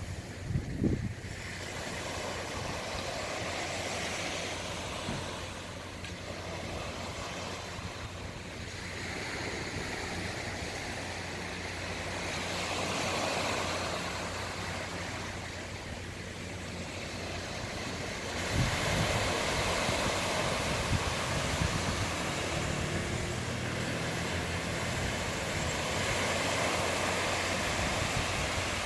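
Sea waves washing onto the shore, swelling and fading every few seconds, with wind buffeting the microphone about a second in and again about two-thirds of the way through.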